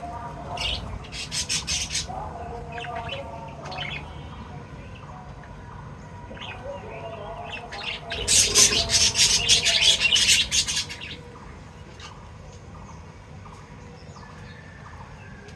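Small pet parrots chirping in rapid, shrill series: a short burst about a second in, quieter scattered chirps, then a longer, louder burst of quick chirps past the middle.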